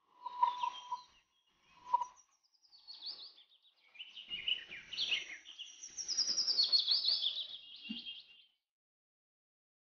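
Birds chirping and singing: quick runs of high, falling notes, busiest in the second half, with a lower steady whistled note near the start and again about two seconds in.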